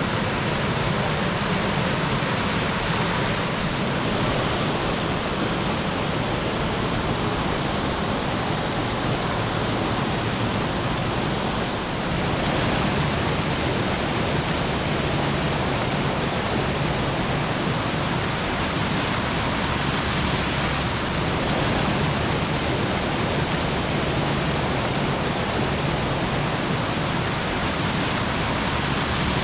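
Steady, loud rush of falling water from a waterfall, with slight shifts in tone a few times.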